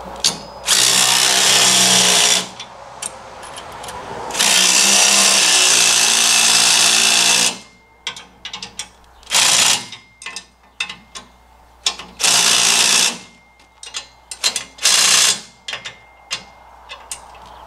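Cordless impact driver running nuts down on hitch extension collar bolts: two long runs of a few seconds each, then several short bursts as the bolts are snugged tight.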